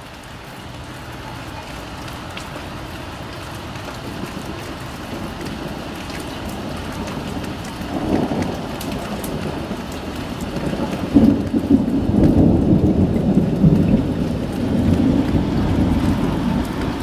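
Thunder rumbling after a lightning strike, over steady rain. It builds slowly, swells about eight seconds in, and is loudest in the second half.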